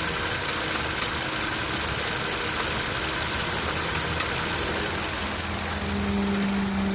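Car engine idling with a ticking, knocking noise. Near the end a steady low hum comes in and the sound grows a little louder.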